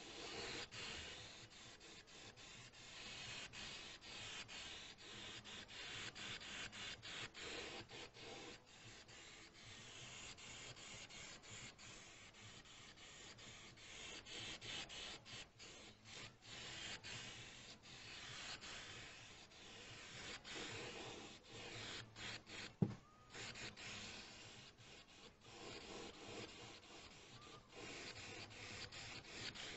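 Aerosol spray paint can hissing in repeated bursts of a few seconds each as green paint is sprayed onto a metal toolbox, with one sharp click about 23 seconds in.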